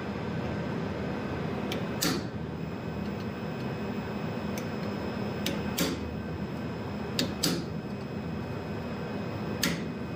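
Hammer tapping a small hot-cut chisel into a steel workpiece held in a bench vise, cutting in a mouth line: about eight sharp strikes at irregular intervals, a few louder than the rest, over a steady background hum.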